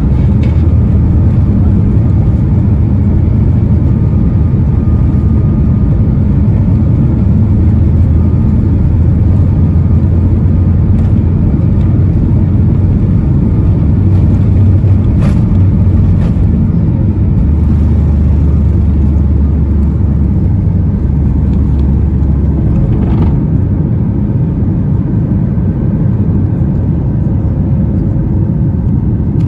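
Boeing 737 MAX 9's CFM LEAP-1B jet engines at high takeoff thrust, heard inside the cabin as a loud, steady low rumble that eases slightly near the end.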